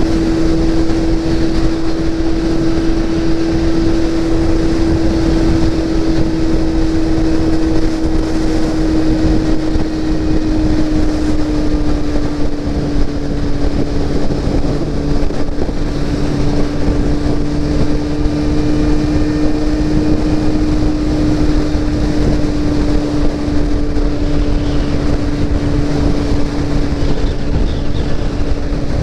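Motorcycle engine running steadily at highway cruising speed, its note dipping slightly about a third of the way through, with wind rushing over the microphone.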